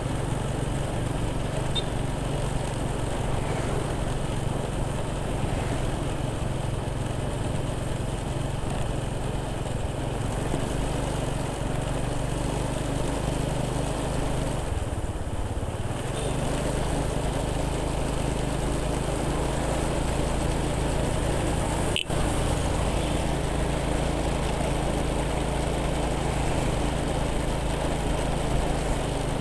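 Small motorcycle engine running steadily while riding. Its note dips and shifts briefly about halfway through, then settles again. There is a brief dropout about three-quarters of the way in.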